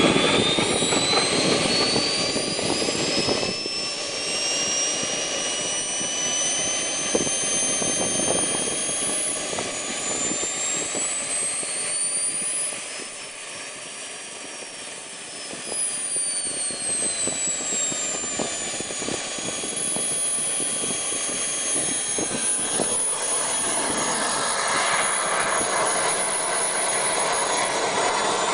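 Radio-controlled model MiG-21's jet turbine running with a high whine. The whine climbs in pitch over the first dozen seconds, dips in level briefly, eases back down, then climbs again near the end.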